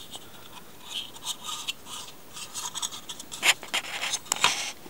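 Handling noise from a small model locomotive and its card packaging being moved about by hand: soft rubbing and scraping, with sharper scraping clicks about three and a half seconds in and again a second later.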